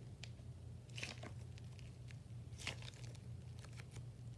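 A squishy pink fidget ball like a splat ball being squeezed in the hand, giving a few short squishing sounds that are really weird, the clearest about a second in and about two and a half seconds in.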